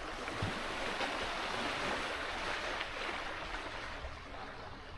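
Sea waves washing onto the shore: a rush that swells for about two seconds, then slowly fades.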